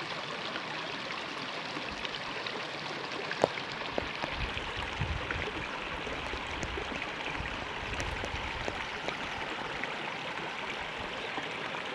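Small rocky stream running over stones, a steady babbling rush of water, with one sharp knock about three and a half seconds in.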